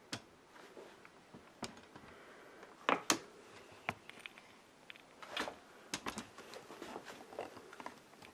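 Handling noise: scattered light knocks and clicks as an e-reader in a leather cover is set down on a wooden desk and handled, the loudest a pair of knocks about three seconds in.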